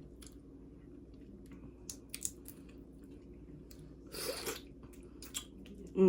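Close-miked mouth sounds of a person eating seasoned blue crab: wet chewing and squishing with scattered small clicks and cracks. There is a louder burst about four seconds in.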